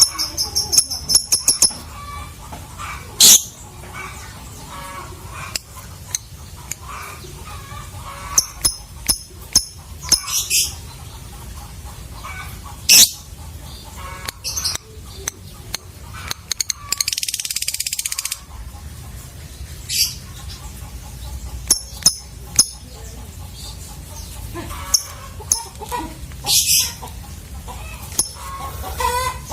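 Lovebirds calling: scattered sharp, high-pitched chirps and shrieks, with a longer rapid chattering trill of about a second and a half near the middle.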